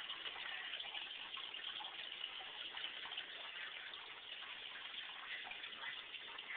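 Aquarium water trickling and bubbling steadily, a soft crackling hiss.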